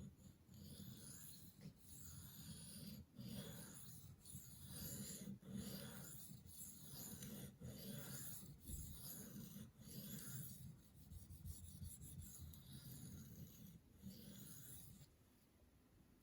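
Knife steel being drawn across a 400-grit diamond sharpening stone, a dry rasping stroke about once a second, stopping near the end. These are edge strokes to raise the micro bevel.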